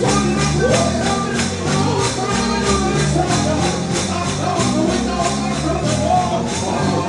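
Upbeat gospel-style music with a tambourine struck on every beat and a voice singing the melody over the band.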